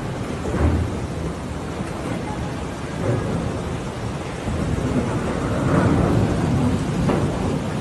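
Loud, steady rumbling roar that swells several times, most strongly around six seconds in.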